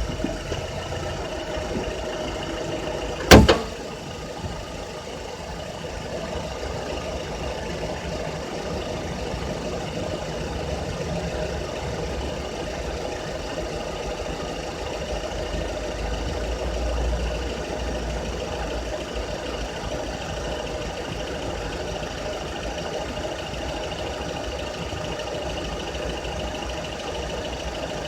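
Honda Accord's K24Z3 2.4-litre four-cylinder engine running steadily, recorded while chasing a rattle. A single sharp knock sounds about three seconds in.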